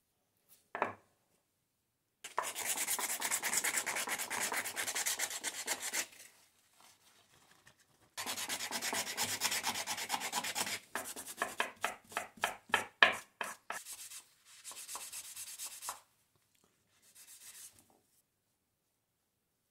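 A light knock about a second in, then the wooden handle of an old hand drill being sanded by hand with abrasive paper: fast scratchy rubbing in two long spells, breaking into separate strokes and then fainter rubbing near the end.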